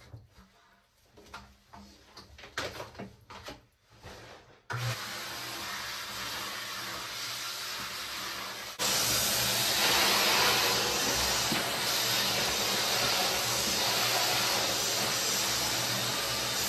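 A few light handling clicks, then a wet/dry shop vacuum is switched on about five seconds in and runs steadily. It gets louder and brighter about four seconds later, then cuts off abruptly just before the end.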